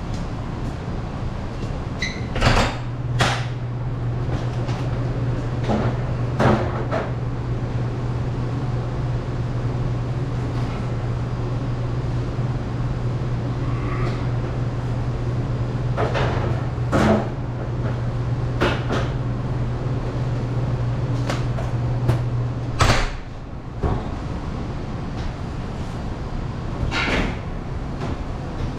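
Restaurant kitchen clatter: a series of sharp knocks and bangs, like doors and containers being opened, shut and set down. They sound over a steady low machine hum that starts with a knock a couple of seconds in and cuts off with another knock about 23 seconds in.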